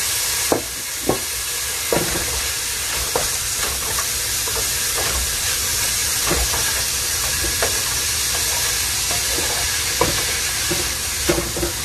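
Chopped onion and bell peppers sizzling steadily in hot oil in a stainless steel pan, with a wooden spoon scraping and now and then tapping against the pan as they are stirred.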